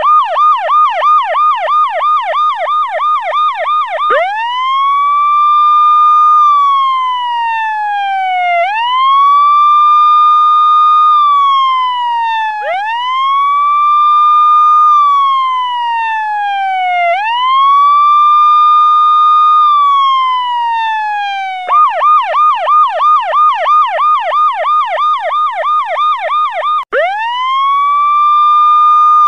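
Electronic police-style siren alarm. It opens with a fast yelp of about four pitch swoops a second, switches at about four seconds in to a slow wail that rises, holds and falls roughly every four seconds, then goes back to the fast yelp for a few seconds before cutting out for an instant and returning to the wail near the end.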